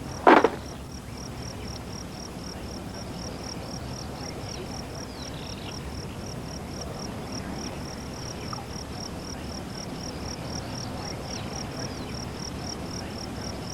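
An insect chirping steadily in a high, regular pulse about three or four times a second, with a single sharp knock just after the start.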